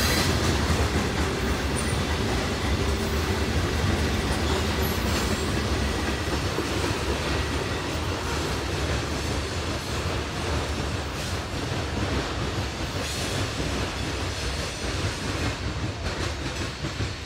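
Freight train of covered grain hopper cars rolling past, wheels clacking over the rail joints, the sound slowly fading as the last cars draw away.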